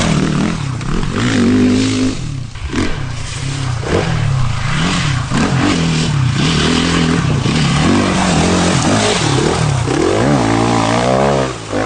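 Sherco 450 SEF-R four-stroke single-cylinder dirt bike engine revving hard under load up a steep slope, its pitch rising and falling over and over with the throttle and gear changes.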